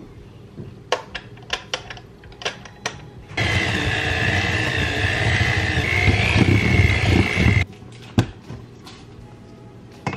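Electric hand mixer running for about four seconds, its beaters creaming butter and sugar in a glass bowl, with a steady whine, then switched off abruptly. A few sharp clicks come before it starts and one after it stops.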